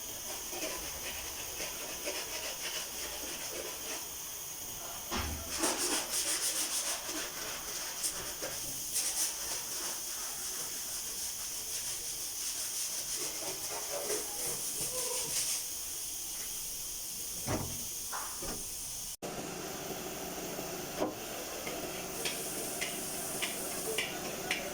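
Body-shop work on a car door panel: a steady high hiss with repeated rubbing strokes, like sanding. After a cut about three-quarters of the way in, it continues as a hiss with light ticks.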